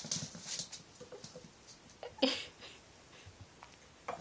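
Cavalier King Charles spaniel puppy scrambling about on a wood floor and rug: scattered scuffs and paw taps, with one louder scuffling thump about two seconds in.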